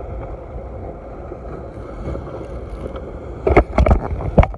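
Steady low rumble of wind and water around a small boat, then a quick run of sharp knocks about three and a half seconds in.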